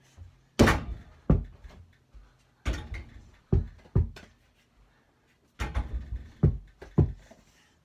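A mini basketball thumping repeatedly against an over-the-door hoop's backboard and door and bouncing on the floor: about eight or nine sharp, unevenly spaced thumps.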